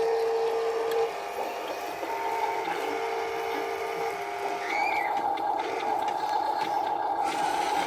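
Small electric motors of a Huina RC dump truck whining as its tipper bed lowers. The steady whine switches between a lower and a higher pitch a few times.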